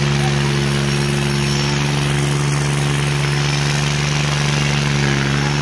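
New Holland tractor's diesel engine running hard at steady high revs, pulling in soft dirt and putting out black exhaust smoke.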